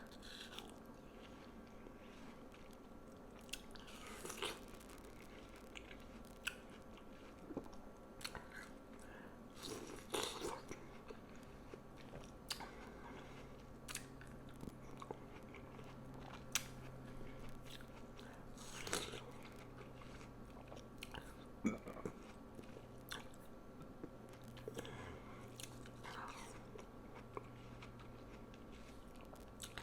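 Close-miked eating of watermelon: scattered bites and wet, crunchy chewing, with a few louder bites spread through.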